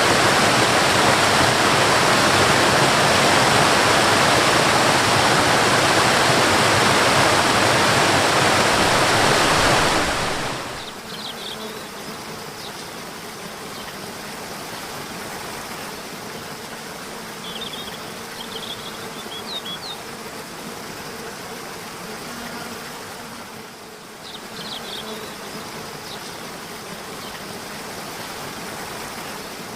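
Mountain waterfall rushing loudly. About ten seconds in it drops suddenly to a much quieter background of softer running water, with a faint steady buzz and scattered short high chirps.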